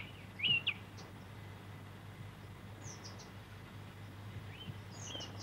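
Spotted flycatchers at the nest giving short, thin, high chirps: one about half a second in, a few fainter ones about three seconds in, and a few more near the end.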